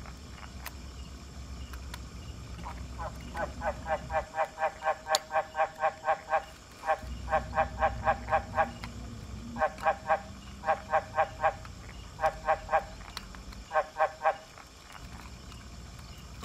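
Frogs calling: trains of short, rapid croaks, about five a second, coming in repeated bouts that stop and start.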